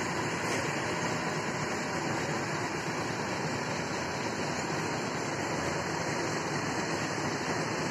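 Steady, even background hiss of outdoor ambience, with no distinct sound standing out.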